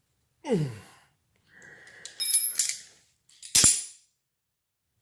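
Small metal parts clinking, with a bright metallic ring that lingers briefly, and a sharp metal clink about three and a half seconds in. A short falling sound comes just before, about half a second in.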